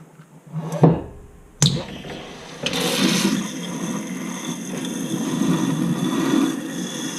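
Two sharp knocks, then about three seconds in a garbage disposal starts up and runs steadily with water going through it.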